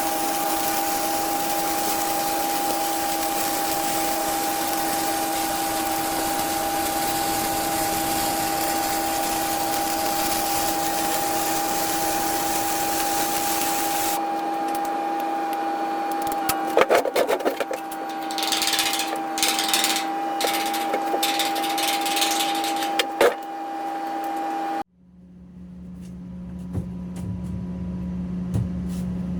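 Flux-core arc welding: a continuous arc hiss over a steady machine whine for about the first half, then several short crackling bursts of welding. Near the end the sound cuts off suddenly to a low, steady hum.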